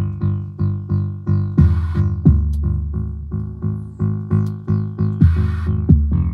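Electronic music from synthesizers and a drum machine: a bass-heavy loop of short plucked notes, about three a second, with a bright noisy cymbal-like hit about a second and a half in and again a little after five seconds.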